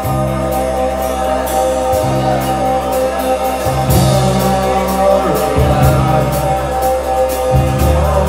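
Live rock band playing: electric guitars and bass over drums keeping a steady beat, with a singer's voice on top.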